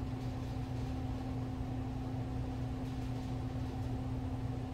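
A steady low machine hum with an even hiss over it, unchanging throughout, like a fan or other appliance running in the room.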